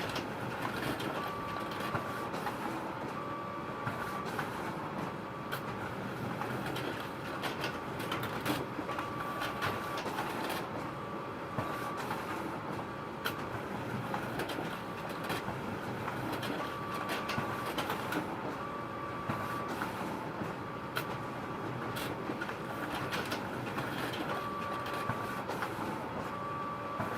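Photocopier running: a steady mechanical whir with scattered sharp clicks and a high whine that sounds in short pulses every second or two.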